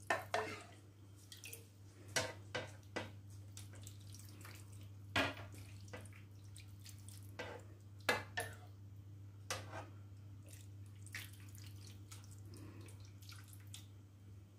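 Meat broth being ladled from a saucepan into a roasting tin: scattered short splashes and drips of liquid, about a dozen, a second or two apart, with light knocks of the ladle against the pan, over a faint steady low hum.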